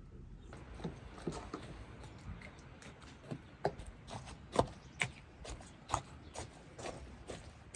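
A knife point stabbing into a raw bull leg on a wooden cutting board: a run of irregular sharp knocks and taps, two of them louder about halfway through.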